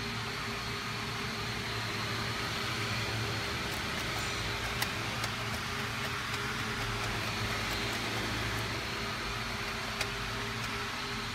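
Steady background hum and hiss, with a few light clicks around the middle and near the end.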